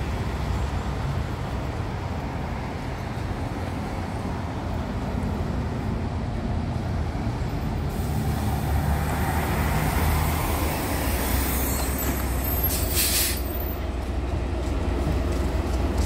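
Daewoo BS090 city bus engine running as the bus drives up and pulls in to a stop, growing louder as it nears. About thirteen seconds in, a short loud hiss of air as the bus halts.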